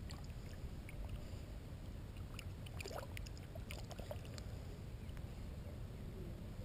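A redfish splashing and kicking in shallow water as it is taken by the tail, a cluster of small splashes about halfway through, over a steady low rumble.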